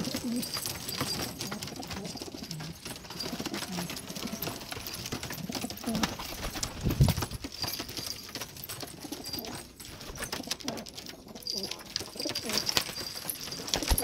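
Domestic pigeons cooing, with low coos coming again and again, mixed with scattered light taps.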